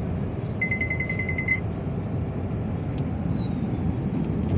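Steady road and engine noise inside a moving vehicle at highway speed. About half a second in, a rapid electronic beeping, roughly ten beeps in a second, then stops.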